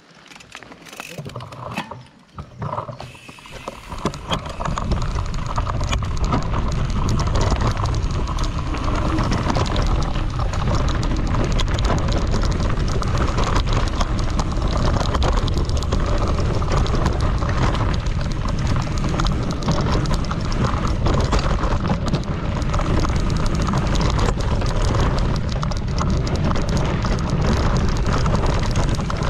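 Mountain bike riding fast over dry dirt singletrack: wind rushing over the microphone, tyres crunching on the dirt, and the bike rattling rapidly over bumps. It is quieter and uneven for the first few seconds, then loud and steady from about four seconds in.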